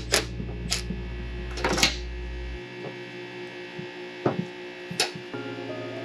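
Background music with sustained tones, its low bass dropping out partway through. Over it come about five sharp clicks and knocks from hand work on a string trimmer.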